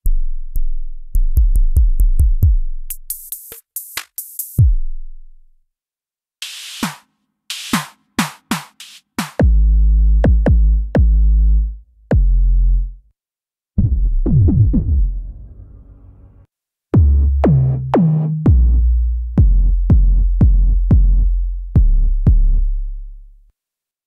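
Korg Opsix Native FM software synth playing electronic drum presets: short synthesized kick hits with a falling pitch, clicks and hissy cymbal-like noise hits, then from about nine seconds heavier, longer kicks and pitched bass hits in short phrases with gaps between them.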